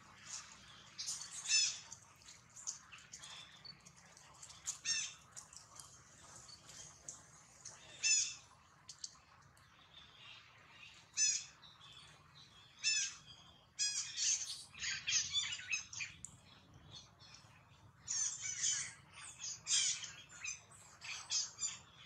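Short, high-pitched animal calls, squeals and chirps, coming singly at first and then in quick clusters in the second half.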